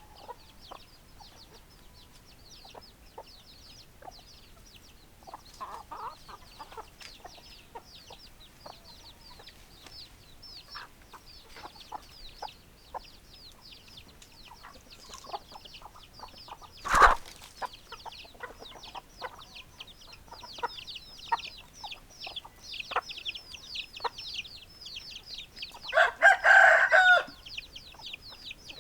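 Chickens clucking in short scattered calls over a dense, steady chorus of high, fast chirps, with a sharp knock about halfway and a rooster crowing once near the end.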